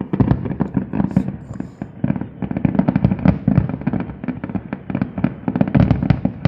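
Fireworks display: a dense, continuous barrage of aerial shell bursts, many bangs a second running into one another, with the deep booms loudest.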